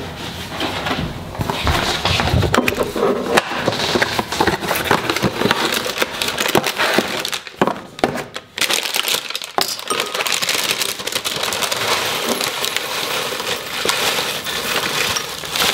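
Plastic bag of granola crinkling and dry granola clusters pouring and rattling into a ceramic bowl, with scattered clinks and knocks as the box and bowl are handled on the counter.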